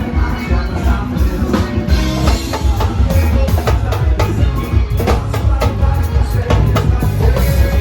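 Loud live axé band music with a heavy bass line and a driving drum-kit and percussion beat.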